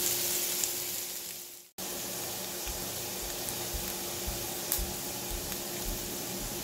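Diced onions, bell peppers and bacon sizzling in bacon grease in a cast-iron skillet. The sizzle fades away about a second and a half in, then cuts back in abruptly and runs on steadily.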